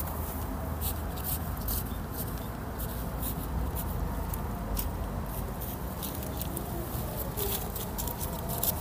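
Hands scratching and pressing loose potting soil in black plastic polybags: a run of short scratchy rustles and plastic crinkles, busier near the end, over a steady low background rumble.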